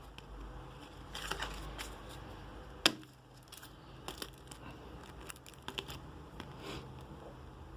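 Trading cards and packaging being handled: scattered light rustles and small clicks, with one sharp click or tap about three seconds in.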